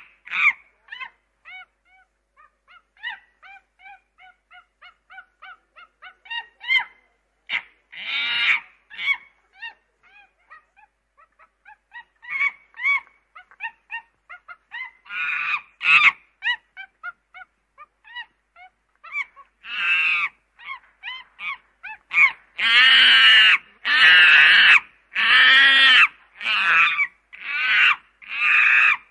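Ducklings peeping in many short, arching calls: sparse and faint at first, then loud, longer calls in quick succession near the end.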